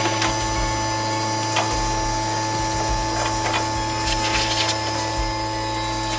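An electric motor tool running steadily with an even hum, with a few light knocks and rubbing sounds over it.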